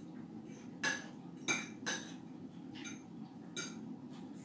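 Metal fork and spoon clinking against a ceramic plate while eating, a handful of short light clinks spaced irregularly, over a steady low background hum.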